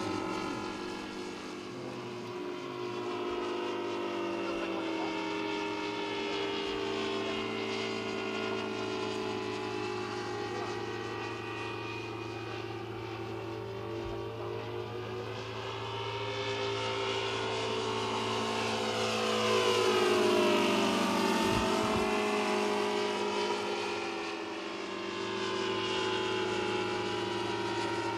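Two O.S. FR7-420 seven-cylinder radial engines on large radio-control scale model planes flying together, running steadily. Their engine notes slowly rise and fall in pitch as the planes pass and cross, loudest about twenty seconds in as they come close.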